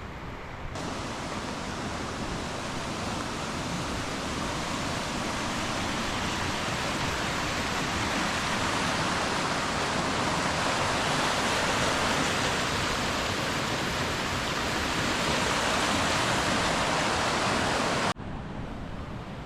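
Rushing white water of river rapids: a steady, even rush that cuts in sharply about a second in and cuts off sharply near the end.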